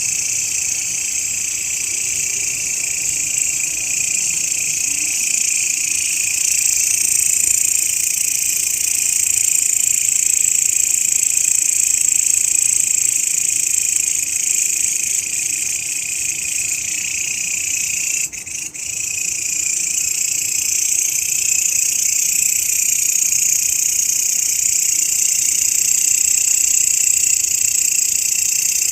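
Grasshoppers stridulating in a dense, steady, high-pitched buzzing chorus, with a momentary dropout about eighteen seconds in.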